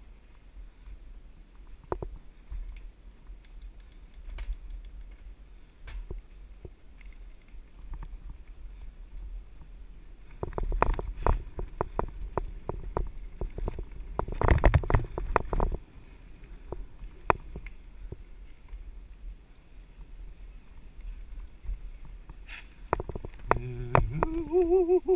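Mountain bike riding down a dirt forest trail: a steady rumble of wind on the microphone, with the bike rattling and clattering over rough ground in heavy runs about ten seconds in and again near the end. A short wavering whine joins near the end.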